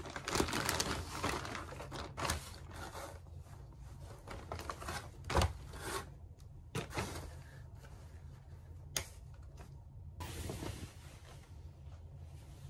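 Crinkly plastic bag rustling as a pair of jeans is pulled out and unwrapped, loudest in the first couple of seconds. After that come quieter handling of the jeans and a few sharp clicks and knocks.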